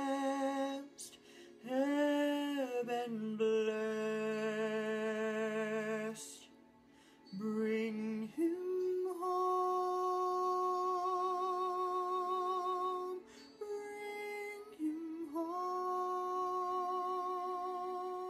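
Man singing a slow musical-theatre ballad in a high, soft voice, holding long notes with vibrato between short pauses for breath.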